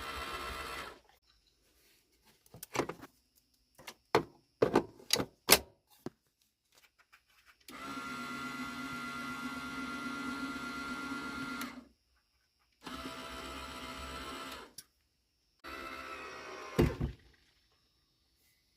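12-volt satellite-dish linear actuator's geared motor running with a steady whine in four separate runs of a few seconds, driving a drill press lift. A handful of sharp clicks and knocks fall between the first two runs, and a loud thump comes near the end of the last run.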